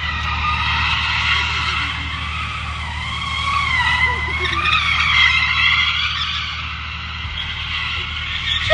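Tesla Model 3's tyres squealing continuously as the car drifts, the pitch wavering up and down and dipping around the middle.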